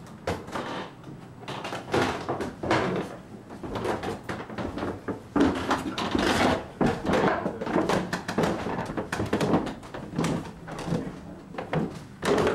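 Irregular movement and handling noise: clothing rubbing close to the microphone, with footsteps and scattered knocks as people move about a small room.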